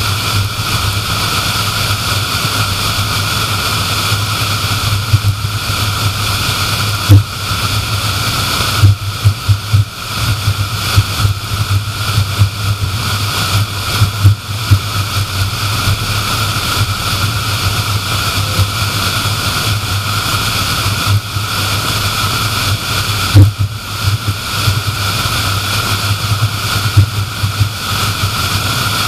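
Steady road noise of a car driving at highway speed: a constant low rumble and hiss from the tyres and passing air, with a few brief thumps.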